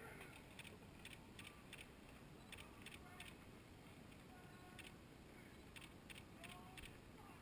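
Near silence: faint riverside ambience, with small irregular ticks and a few brief, faint whistled notes.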